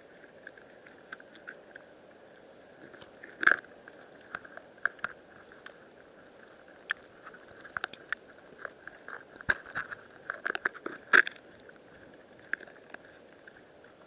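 Underwater sound in shallow sea water: irregular clicks and crackles over a faint steady hiss, with the loudest knocks about three and a half seconds in and again near eleven seconds.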